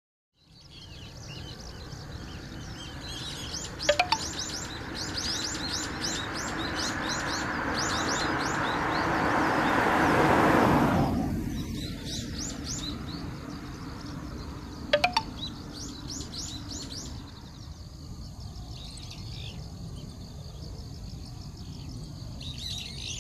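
Small birds chirping in repeated bursts over a steady low outdoor rumble. Partway through, a passing vehicle's noise swells to a peak about ten seconds in, then fades quickly.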